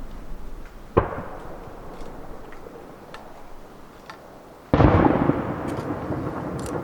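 Aerial firework shells bursting: a sharp bang about a second in that echoes away, then a louder boom near the five-second mark with a long rolling echo.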